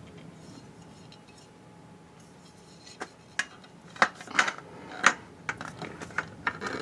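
Steel drawer slides clinking and clicking against the sheet-metal side panel of an IKEA Helmer drawer cabinet as they are fitted into its slots. A quiet couple of seconds, then a run of sharp metallic clicks and clanks from about three seconds in.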